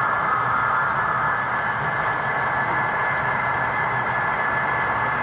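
Model trains running on an exhibition layout: a steady whirring hum with a thin, high steady whine over it.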